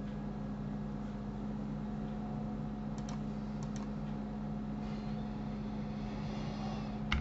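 Steady low electrical hum of the recording setup, with a few faint computer clicks about three seconds in and another near the end.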